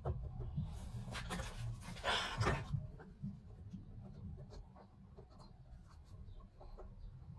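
Handling noises at a car door's wiring: light rustling of plastic and a few small clicks as the door trim panel's wiring connectors are worked loose and unplugged. The rustling is strongest in the first couple of seconds, and scattered faint clicks follow.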